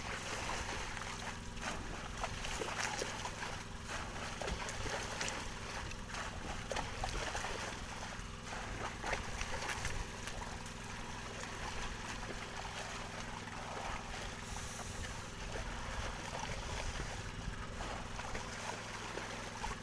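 Sea water splashing and sloshing, irregular and continuous, as a hand dip net is scooped through a dense swarm of squid at the surface. A steady low hum runs underneath.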